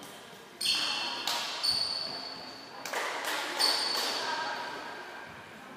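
Volleyball play on a hard sports hall floor: five sharp knocks of the ball being struck and bouncing within about three seconds, several followed by short high-pitched squeaks of sneakers on the floor, in a reverberant hall.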